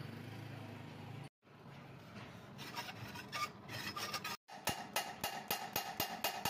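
Metal rubbing and scraping on a diesel cylinder head during valve-seat work. It starts with a steady low hum, then irregular scraping, and ends in a run of quick, even back-and-forth strokes, about four a second, as a valve is worked on its seat by hand.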